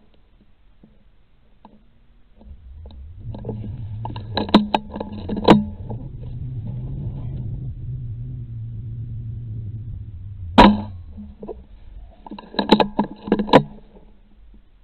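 A rifle being loaded: a run of sharp metallic clicks from the bolt and magazine in two groups, with the single loudest click about ten seconds in, over a steady low rumble of handling.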